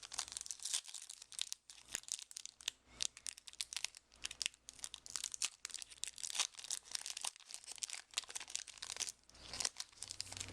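A Yu-Gi-Oh booster pack's foil wrapper crinkling and being torn open by hand, with dense, irregular crackles.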